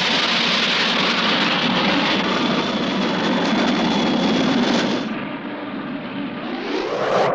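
Cartoon rocket thruster sound effect: a steady, loud rushing hiss that turns quieter and duller about five seconds in, then swells and brightens again near the end.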